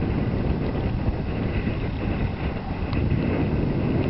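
Wind buffeting the microphone of a camera carried on a moving bicycle, a steady low rush with no break.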